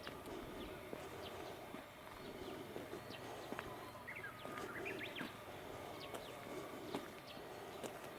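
Outdoor ambience: a low, steady murmur with scattered light clicks, and a quick cluster of short bird chirps about four to five seconds in.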